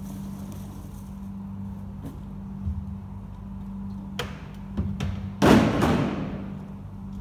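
Empty plastic grape-picking lugs knocking and clattering as they are handled and stacked, the loudest a hard crash with a short ringing tail about five and a half seconds in, over a steady low machinery hum.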